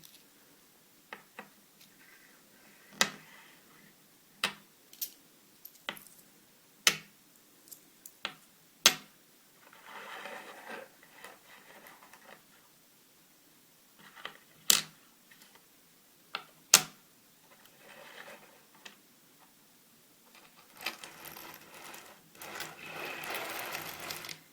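Coins being handled: a string of sharp single clicks of coins tapped and set down against each other, with stretches of soft rustling, the loudest near the end.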